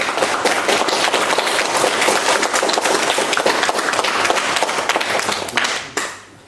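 Applause from a small audience, a steady mass of clapping hands that dies away near the end.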